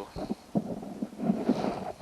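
Handling noise: a few irregular light knocks and rustles over a low rumble, as parts are handled at the engine.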